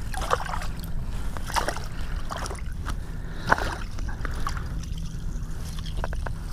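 Water splashing and sloshing in an ice-fishing hole as a hand reaches in and lifts out a thrashing smallmouth bass: a series of short, separate splashes.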